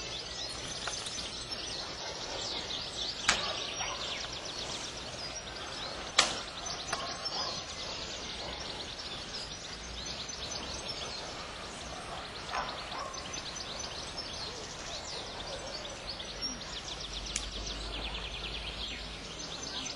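Many small birds chirping and calling at once, with a trill near the end and two sharp clicks about three seconds apart early on.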